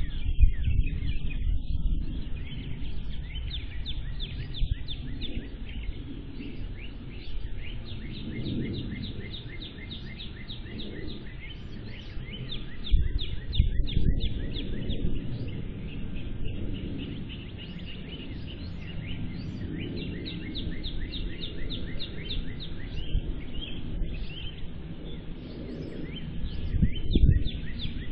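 Birds chirping in long, rapid runs of short repeated chirps, over a low, uneven rumble of wind on the microphone.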